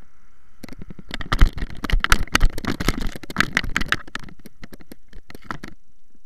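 Tall grass rustling and crackling against the drone's onboard camera as it is picked up by hand, with knocks and scrapes from the handling. A dense run of irregular clicks and scrapes starts about half a second in and stops shortly before the end.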